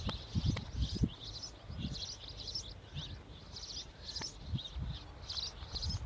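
Small birds chirping and twittering in quick, repeated phrases, with irregular low rumbling on the microphone underneath.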